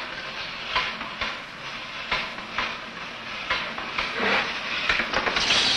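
Mechanical fright apparatus clattering, with sharp clacks about twice a second over a steady hiss. A shrill, wavering sound begins near the end.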